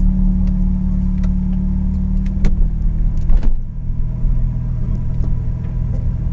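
Nissan March K11's engine running steadily, with a few sharp clicks near the middle. About halfway through, the higher sounds drop away and only the engine hum remains.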